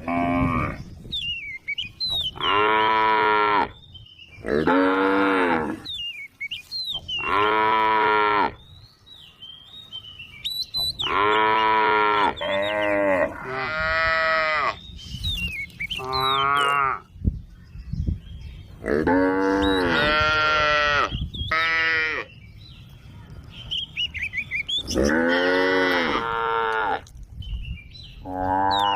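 Cows mooing again and again, a call of about a second every second or two, each rising and falling in pitch. Short high bird chirps come in the gaps between calls.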